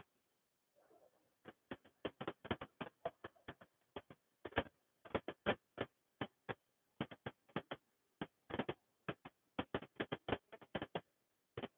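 Irregular soft clicks and ticks, several a second at uneven spacing, with silence between them.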